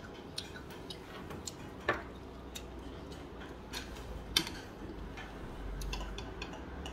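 Scattered light clicks and taps of tableware during a meal, chopsticks and dishes being handled at irregular intervals, with a sharper tap about two seconds in and another a little past four seconds.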